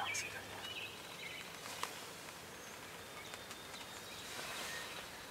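Faint outdoor ambience with a few short, faint bird calls, the clearest right at the start.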